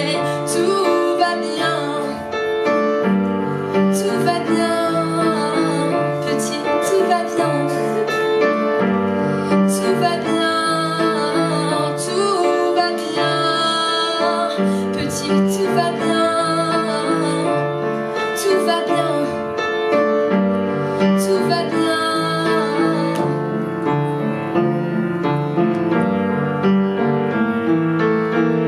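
Upright piano playing a steady, repeating chord accompaniment, with a woman's singing voice over parts of it.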